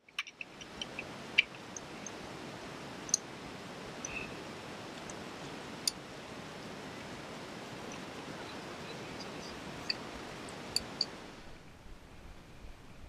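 Steady wind rushing over the camera microphone, with scattered faint clicks; it dies down near the end.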